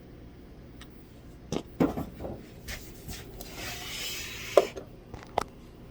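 A few knocks, a scraping rub about a second long, then two sharp clicks: a Phillips screwdriver at work on the loose screw behind the presser-foot bar of a Brother SE400 sewing machine. The screw is being tightened so the presser foot can no longer shift and let the needle strike the needle plate.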